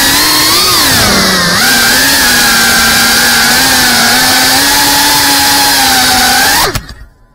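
FPV drone's brushless motors and propellers whining at a steady pitch, dipping in pitch and climbing back about a second in, then cutting off suddenly near the end as the motors stop.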